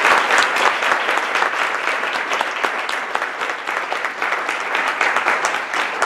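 An audience applauding, a dense patter of many hands clapping that eases off slightly over the seconds.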